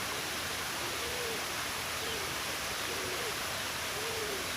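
Short, low hooting calls, each a brief rise and fall in pitch, repeated about once a second over a steady rushing hiss of running water or rain.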